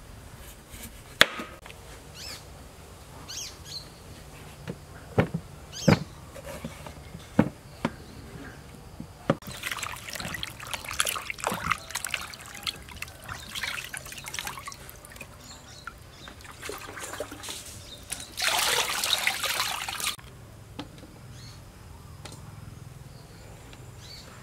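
Halved green papayas being washed by hand in a stainless steel basin of water: water splashing and sloshing as the fruit is rubbed. Several sharp knocks come before the splashing begins, and a louder burst of splashing or pouring comes near the end.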